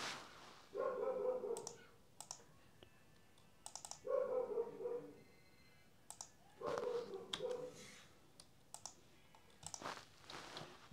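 Computer keyboard typing and mouse clicks, a scattering of sharp separate clicks. Three drawn-out pitched calls sound in the background, each about a second long; these are the loudest sounds.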